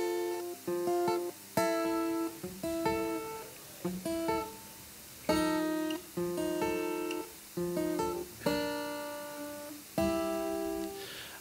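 Acoustic guitar playing a slow song intro. Single strummed chords start sharply about once a second and are left to ring and fade.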